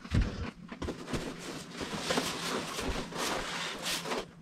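Cardboard box being drawn up out of a larger cardboard shipping box: cardboard scraping and rubbing on cardboard, with a thump just after the start.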